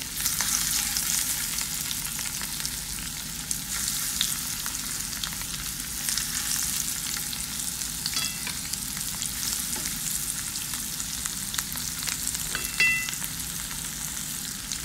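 Masala-coated fish shallow-frying in coconut oil in a nonstick pan: a steady sizzle with fine crackling. There is a short ringing clink about two-thirds of the way through and a louder one near the end.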